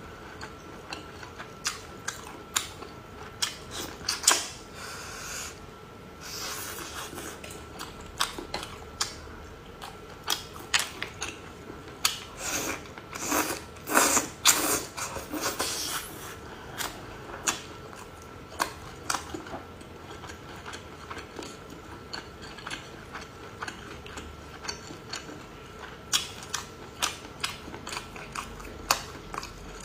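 Close-up eating sounds: many sharp clicks and taps with short bouts of wet chewing, around the middle most of all, as cooked small squid are eaten.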